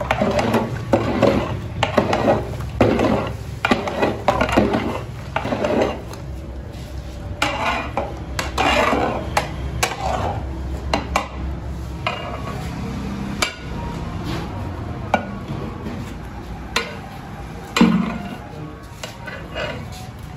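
A long-handled metal ladle stirring thick custard in a metal pot, scraping and clinking against the pot's sides in repeated strokes, over a steady low hum. A sharp knock near the end.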